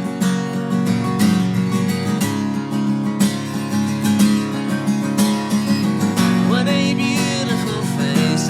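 Acoustic guitar strummed steadily in an instrumental break of the song. A voice with a wavering pitch comes in about two seconds before the end.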